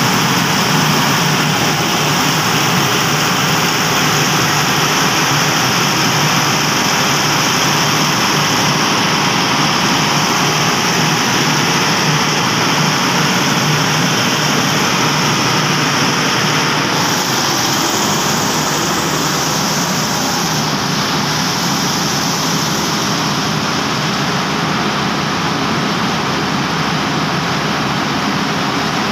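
Perkins 2500 series diesel engine of a 400 kVA generator set running steadily: a loud, even mechanical noise with a strong high hiss and no change in speed.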